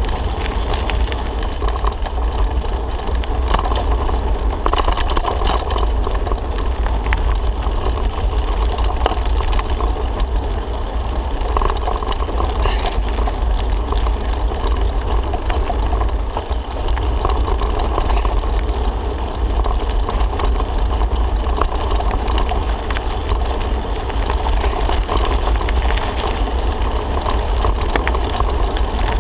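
Steady wind rumble over a bike-mounted camera's microphone, mixed with tyre noise and light rattling of a bicycle riding a rough, grassy dirt track.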